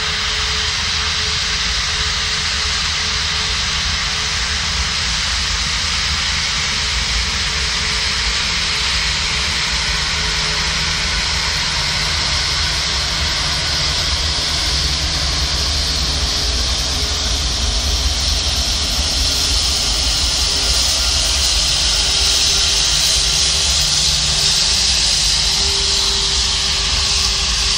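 Airbus A340's jet engines running at taxi power: a steady rushing hiss over a low rumble, with a faint steady whine, growing louder in the second half.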